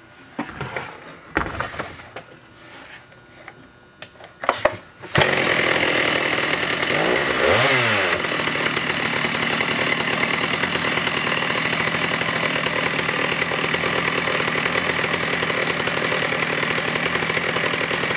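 Stihl 084 chainsaw's 121cc two-stroke engine starting after a few knocks, catching suddenly about five seconds in, revving up and back down once, then running steadily.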